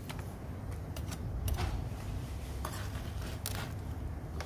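Small plastic trowel scraping and scooping loose soil inside a plastic barrel: a handful of short scrapes and taps, roughly one a second.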